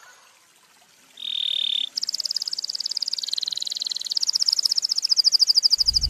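Belgian canary singing: a short held whistle about a second in, then a rapid pulsing trill that dips lower in pitch for about a second before rising again.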